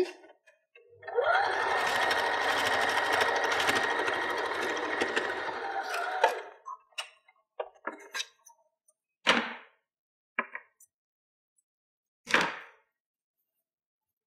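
Janome electric sewing machine top-stitching: the motor winds up, sews steadily for about five seconds, then winds down and stops. A few small clicks and two brief rustles follow as the work is handled.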